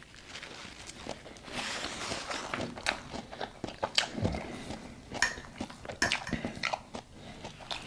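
Close-miked eating sounds: biting and chewing, with many short wet mouth clicks and smacks.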